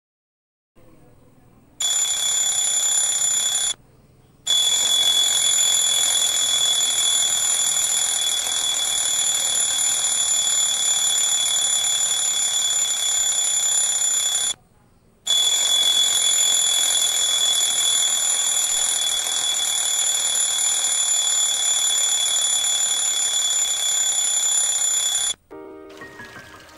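Electronic alarm ringing: a loud, steady, high-pitched tone that breaks off twice for a moment, then cuts off suddenly near the end as it is switched off.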